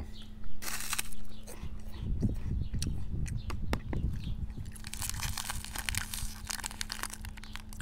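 Plastic snack wrapper crinkling and rustling in the hands, with scattered sharp clicks, around a puffed corn snack stick; a longer stretch of crinkling comes about five seconds in. A steady low hum runs underneath.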